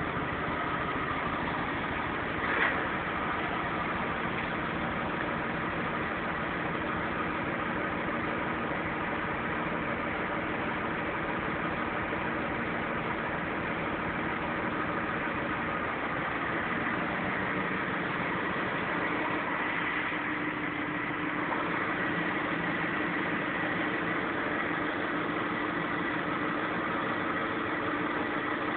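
BMW 528i engine idling steadily, with the odd low-pitched engine noise that appeared after a fender bender. One short click about two and a half seconds in.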